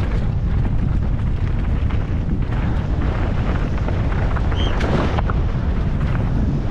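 Wind buffeting the camera of a downhill mountain bike descending a dirt trail at speed, with the tyres running over dirt and stones and the bike rattling and knocking. A brief high note sounds about four and a half seconds in.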